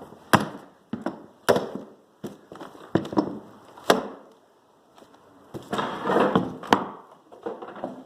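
Mallet blows on a manual hardwood flooring nailer: a run of sharp, hard knocks spaced about half a second to a second apart. A rougher, noisier stretch comes around six seconds in, followed by another hard hit.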